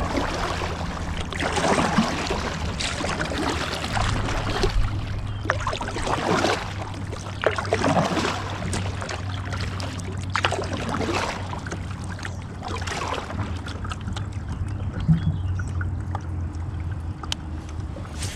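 Kayak paddle strokes dipping and pulling through the water, a splashy swish every second or two, over a steady low hum.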